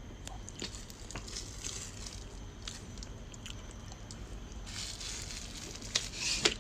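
A hard-shell spinner suitcase being handled: rustling and scraping with scattered sharp clicks, growing louder and busier about two thirds of the way in, with two sharp clicks near the end.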